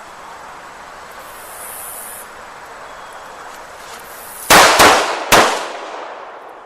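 Three pistol shots: two in quick succession, then a third about half a second later, the two-to-the-body, one-to-the-head string of the drill, each with a short echo. Insects buzz on and off beforehand.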